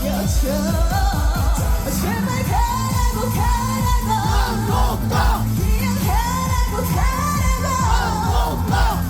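A female singer singing a Korean trot-pop song live over a backing track with a steady beat, her voice holding long notes with vibrato.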